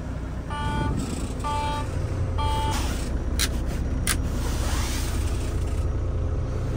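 Volvo truck's low brake air pressure warning beeping about once a second, four short beeps, over the diesel engine idling after a start with the air tanks drained. The beeps stop a little over halfway through, followed by two sharp clicks and a rush of air.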